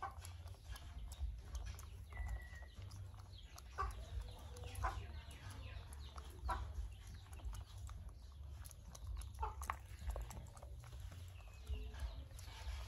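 Chickens clucking now and then, short calls a second or two apart, over a steady low rumble.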